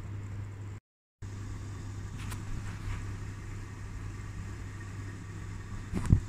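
A steady low hum with a faint haze of background noise, cutting out completely for a split second about a second in; a couple of short thumps near the end.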